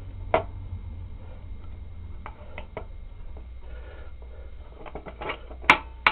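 Scattered metal clicks and knocks from handling the motorcycle frame, engine and mounting bolts, over a low steady hum; the sharpest knocks come near the end.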